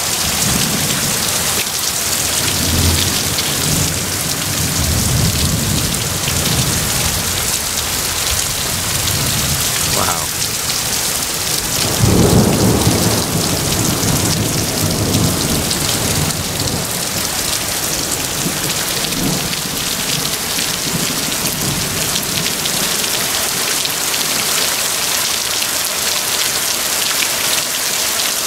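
Heavy rain pouring steadily, with thunder rumbling on and off. The loudest clap comes about twelve seconds in, and the rumbles fade toward the end while the rain keeps on.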